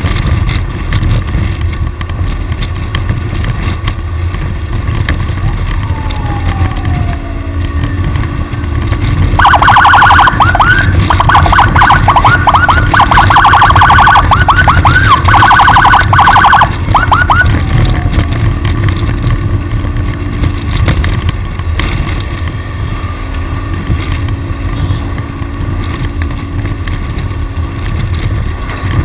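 Electronic siren in a fast yelp, quick rising sweeps repeated several times a second, sounding for about eight seconds starting near the middle. Under it runs a steady rumble of vehicle engine and road noise.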